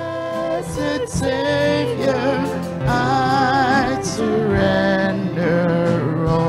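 Hymn music: sustained sung notes with vibrato over a steady low instrumental accompaniment.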